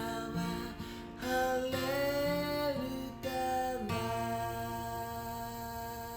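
Closing bars of an acoustic-guitar song, with a held melodic note in the middle. A final chord is struck about four seconds in and rings out, fading slowly.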